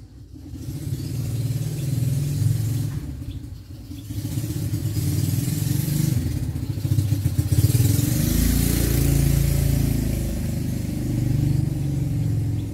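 A motor vehicle engine running, its pitch shifting up and down as it speeds and slows, with a deep rumble loudest about eight seconds in.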